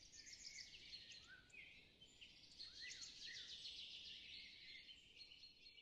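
Faint chorus of small birds chirping and trilling, with many short rising and falling calls over a soft outdoor hiss.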